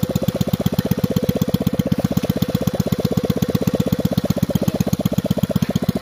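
Rebuilt 110 cc single-cylinder four-stroke step-through motorcycle engine idling steadily, with an even, rapid putter of about a dozen exhaust pulses a second.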